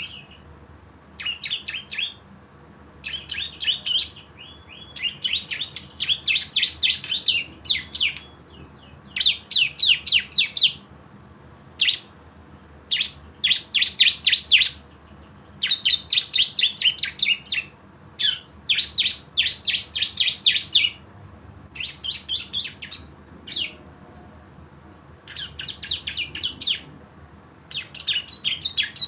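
Prinia (cisem) singing its rapid 'ngebren' song: bursts of fast, sharp repeated notes like machine-gun fire, each a second or two long, with short pauses between them.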